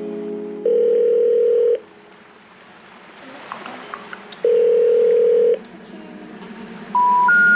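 Telephone line tones: two long steady beeps at one low pitch, about a second each and a few seconds apart, then three short tones stepping up in pitch near the end. The rising three-note pattern is the intercept signal of a call that cannot be connected.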